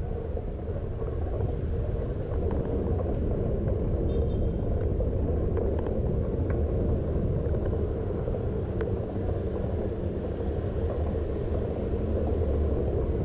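Steady, low-pitched wind and rolling noise from a camera carried on a moving bicycle, with wind on the microphone and tyres running over paving stones.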